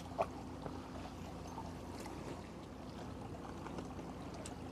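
Low, steady rumble of a small fishing boat at sea, with one light click just after the start.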